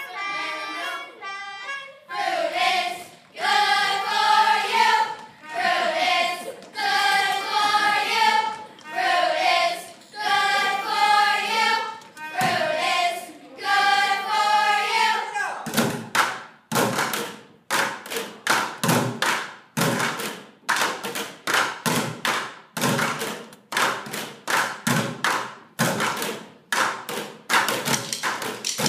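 A children's chorus sings short phrases together. About halfway through the singing stops and they drum a fast rhythm of sharp hits on white plastic buckets.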